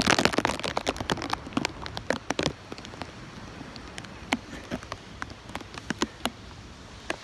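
Raindrops from a storm squall striking close to the microphone in irregular sharp ticks, over a light rush of wind. The hits are thickest in the first couple of seconds and then thin out.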